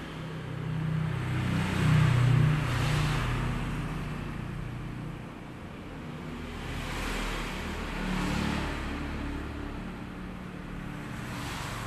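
Passing motor-vehicle traffic, engine sound swelling and fading several times, loudest about two seconds in.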